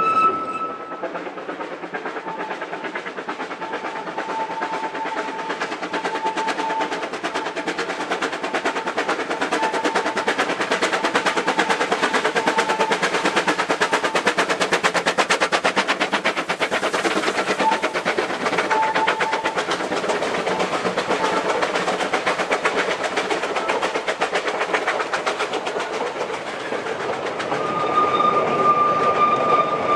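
Two Vale of Rheidol narrow-gauge steam tank locomotives working a train double-headed, with a rapid, dense chuffing exhaust beat, loudest about halfway through. The train's coaches and wagons rattle and clatter over the rails, and a thin high tone comes and goes over it.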